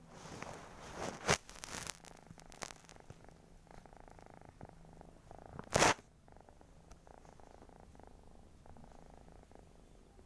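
Domestic cat snoring softly in its sleep. Two sharp noises cut in, one about a second in and a louder one near six seconds.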